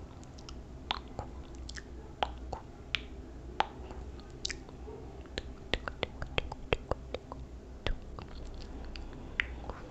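Close-miked ASMR mouth sounds: irregular, sharp, wet clicks and smacks of lips and tongue, coming more quickly about six to seven seconds in, over a low steady hum.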